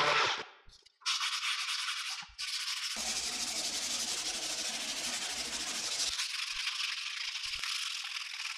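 A handheld sanding pad is rubbed along a rusty steel sword blade, a steady rasping hiss. A power sander dies away at the very start.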